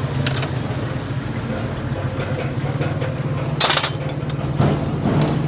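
A small engine idling steadily with a low, pulsing hum, with scattered clicks and a short, loud clatter about three and a half seconds in.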